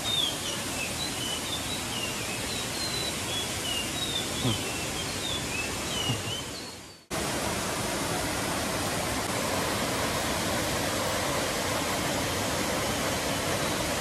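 Small birds chirping, repeated short high notes, over the steady rush of a stream cascading over boulders. About seven seconds in the sound fades and drops out for a moment, then the rushing water returns fuller, with no more chirps.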